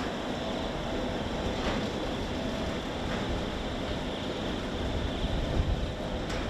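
Wind buffeting the microphone over steady open-air shipyard ambience, with a faint steady hum and a couple of faint knocks.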